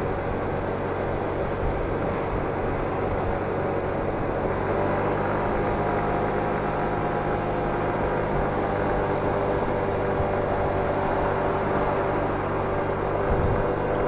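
Motor scooter engine running at a steady cruising pitch while riding at road speed, with wind and road noise rushing over the scooter-mounted microphone.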